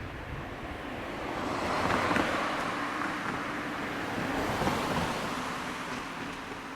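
Road traffic passing: vehicle noise swells to a peak about two seconds in, swells again near five seconds, then fades.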